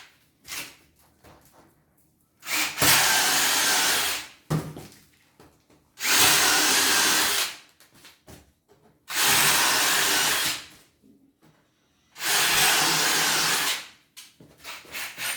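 A power drill runs in four bursts of about a second and a half each, with short pauses between. Small knocks and handling sounds come in the gaps.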